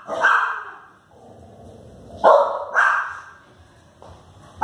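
A small dog barking: three sharp barks, the second and third close together near the middle, and a fourth right at the end, each ringing on briefly in the room.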